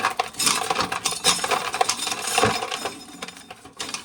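Corn sheller stripping a stubborn ear of corn: a dense, rapid clatter and rattle of kernels being torn off and falling, thinning out near the end. Such ears tend to get stuck, with the sheller's teeth not catching the kernels.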